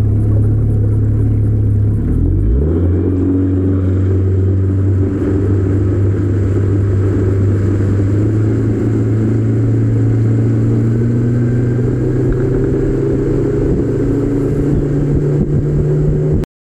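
Fishing boat's engine running under way, rising in pitch as it is throttled up about two seconds in, then holding a steady cruising speed. The sound cuts off abruptly near the end.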